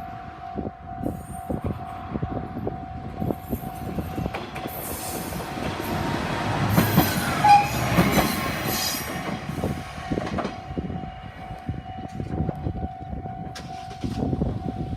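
Japanese level crossing warning bell ringing with rapid, evenly spaced strikes, while a diesel railcar of the Tenryu Hamanako Railway passes over the crossing, loudest about seven to eight seconds in.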